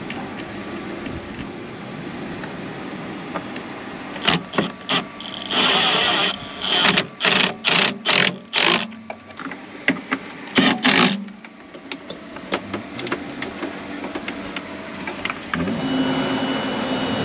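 Cordless drill-driver running in short trigger bursts while tightening screws on a solar charge controller's terminals. It gives one longer whirring run, then about five quick pulses, then a final pair.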